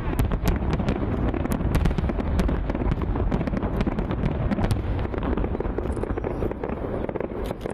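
Fireworks display: aerial shells bursting in quick succession, a dense run of sharp bangs and crackles over a steady low rumble, thinning out near the end.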